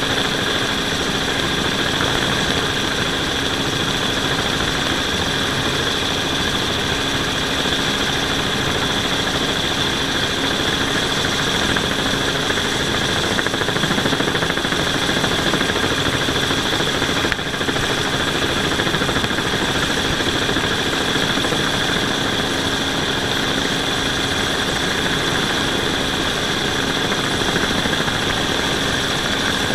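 Camera drone's motors and propellers running in a steady hover, heard from the drone itself: a constant high whine over a lower hum, with a brief dip about seventeen seconds in.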